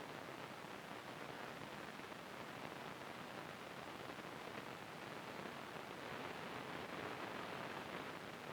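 CB radio receiver hiss: steady static with the squelch open and no station transmitting, just after a transmission drops off.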